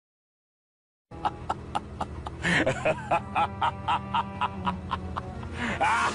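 A short music clip for use as a sound effect. It starts about a second in after digital silence, with a quick steady beat of about three a second over a low held drone and a few short gliding cries.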